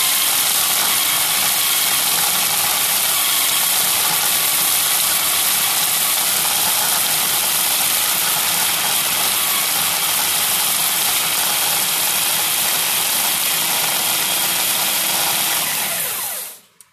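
Cuisinart food processor motor running steadily at full speed, grinding bread ends into fine breadcrumbs. It is switched off near the end and spins down with a short falling whine.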